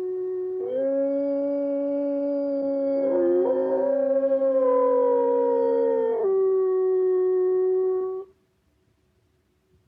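Wolves howling: long, steady howls, with two voices overlapping at different pitches for several seconds. Then one voice goes on alone and cuts off about eight seconds in.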